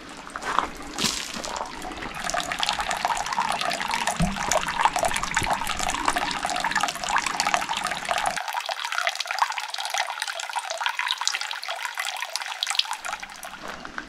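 Running water splashing and gurgling steadily, close by.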